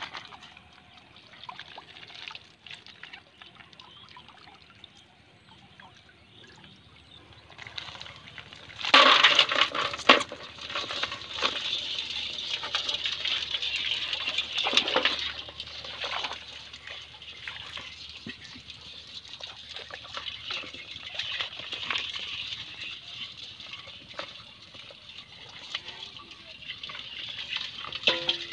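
Water splashing and pouring as a net fish trap is emptied into a plastic bowl in shallow floodwater. About nine seconds in it turns to a louder, steady hiss of running water, with a few sharp splashes.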